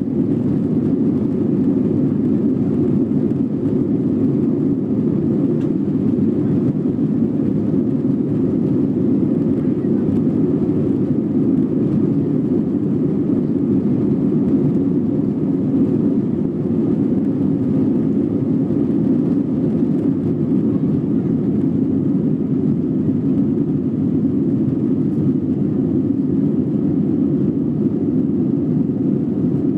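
Airbus A321 twin jet engines at takeoff thrust heard from inside the passenger cabin: a loud, steady, deep noise through the takeoff roll and lift-off.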